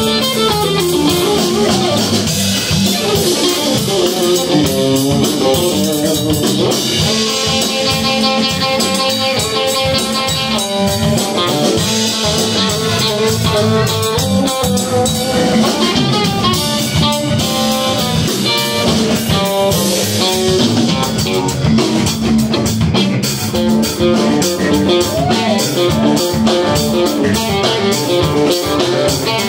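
Live blues-rock trio of electric guitar, electric bass and drum kit playing an instrumental stretch, the electric guitar carrying moving melodic lead lines over a steady bass and drum groove.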